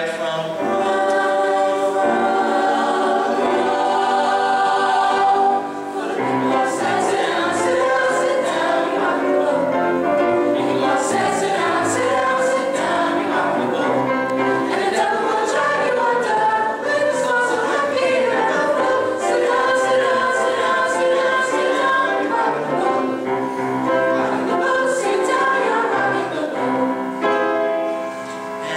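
Mixed school chorus singing a lively show tune with piano accompaniment, a male soloist at the microphone leading at the start.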